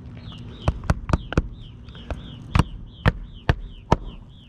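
A string of sharp, irregular taps, about two a second, with a short high falling chirp repeating about three times a second behind them.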